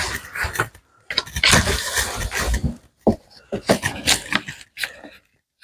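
A clamp being fitted and tightened onto freshly glued pallet-wood pieces: irregular clicks, knocks and clatter of the clamp against the wood, with a longer scraping stretch about a second in.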